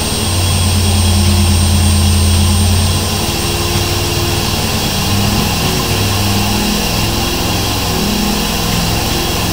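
1870s single-cylinder stationary steam engine under steam: a loud steady hiss of steam over a low drone that wavers and breaks up about three seconds in.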